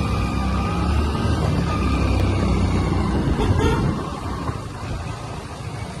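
Motorcycle engine running at low road speed with wind rumble on the microphone, easing off a little over the second half.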